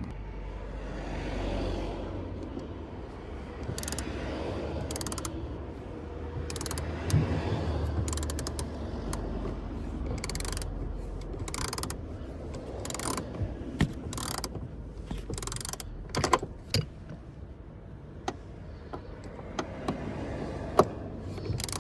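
Socket ratchet clicking in short irregular runs as a long seatbelt anchor bolt is wound out, with rustling handling noise at the start.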